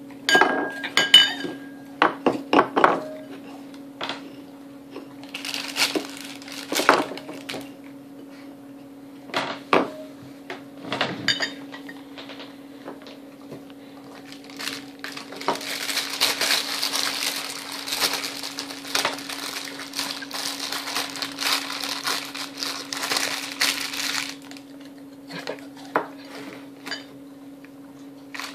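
A glass beer mug clinking and knocking on a wooden table, then a plastic cracker sleeve crinkling for several seconds in the middle. A steady low hum runs underneath.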